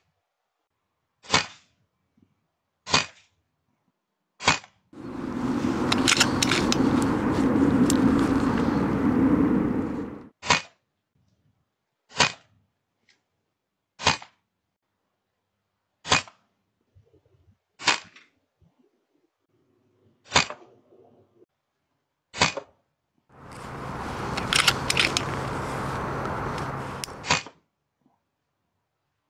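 A silenced PCP air rifle fired again and again, about a dozen sharp cracks spaced one and a half to two and a half seconds apart. About five seconds in, and again near the end, a loud rushing noise runs for several seconds.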